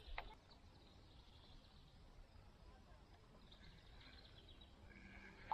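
Near silence: faint outdoor ambience, with a sharp click at the very start.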